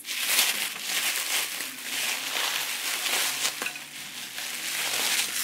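Plastic bubble wrap crinkling and rustling as it is handled and pulled off a stack of dinner plates.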